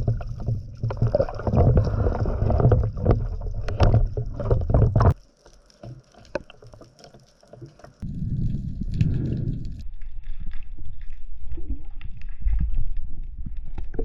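Water rushing and churning against the camera housing, a loud low rumble with scattered clicks. It cuts off suddenly about five seconds in and comes back about three seconds later.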